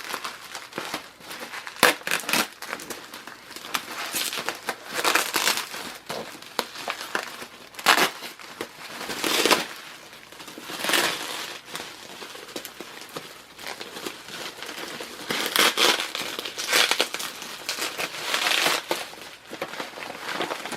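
Packaging, a bag and wrapping, rustling and crinkling in irregular bursts as a skull is unwrapped by hand.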